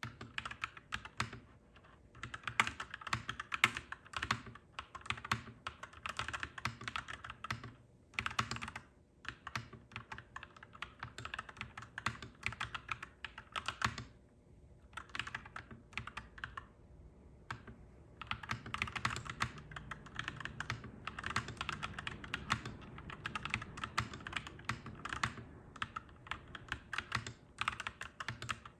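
Clacky mechanical keyboard being typed on in quick runs of keystrokes, with a short pause about eight seconds in and a longer lull around the middle.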